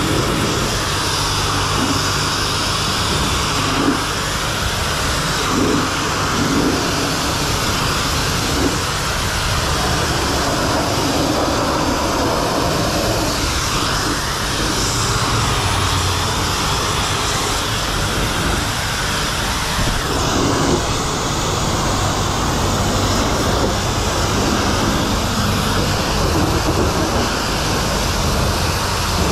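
High-pressure car-wash spray wand jetting water onto a pickup truck's windows and door panels: a loud, steady hiss of spray.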